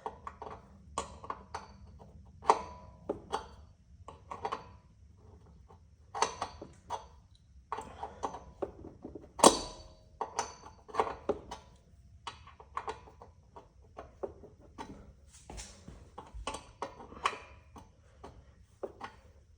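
A wrench and other hand tools clinking and knocking against metal parts, irregular taps and clicks, some with a short metallic ring. The sharpest knock comes about halfway through.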